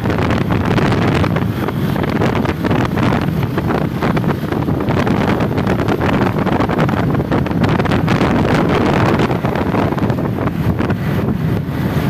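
Steady wind buffeting the microphone while riding along a road, over a low rumble of engine and traffic noise. No horn sounds.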